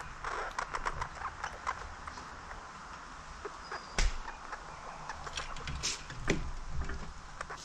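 A squirrel feeding on sunflower seeds at a hanging metal bird feeder close by, making a run of irregular clicks and taps. The taps are thickest in the first couple of seconds, with one sharper click about four seconds in.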